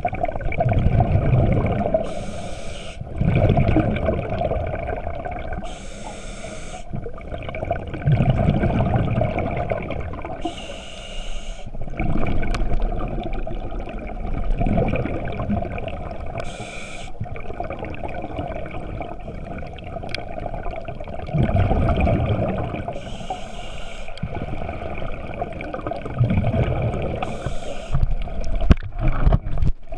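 A scuba diver breathing through a regulator, heard underwater. About six breaths come every four to six seconds, each with a short hiss of inhaled air, and low gurgling rumbles of exhaled bubbles fall between them.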